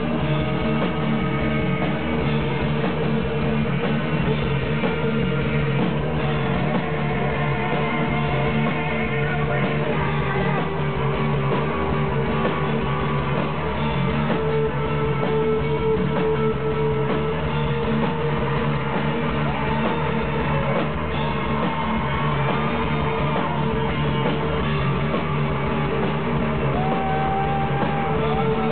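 Live heavy noise-rock band playing a dense, unbroken wall of distorted electric guitars over drums.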